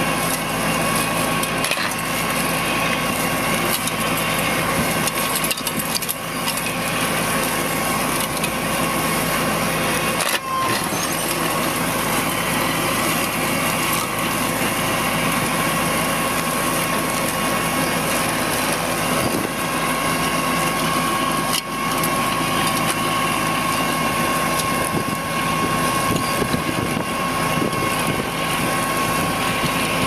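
Heavy machinery running steadily under load, with a constant high whine over the engine. The sound breaks off abruptly about ten seconds and about twenty-two seconds in.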